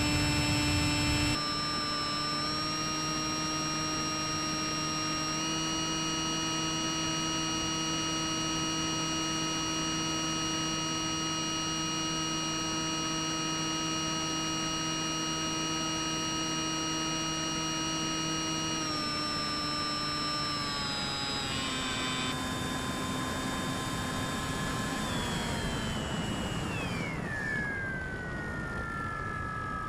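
Electric motor and propeller of a Bix3 RC plane whining steadily in flight. Its pitch steps up slightly about two seconds in, steps down about two-thirds of the way through, then falls away smoothly over the last few seconds as the throttle is eased back.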